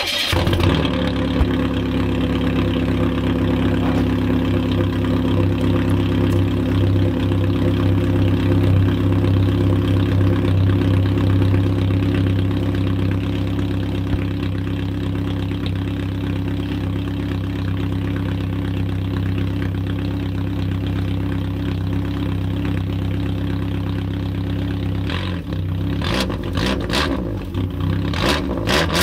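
Chevrolet Beretta engine starting and idling with its muffler cut off, the exhaust running straight out of an open, torch-cut pipe. Near the end it is revved a few times.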